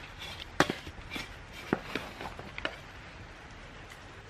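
Several sharp taps and knocks, about six within the first three seconds, from handling a garden pot and potting materials.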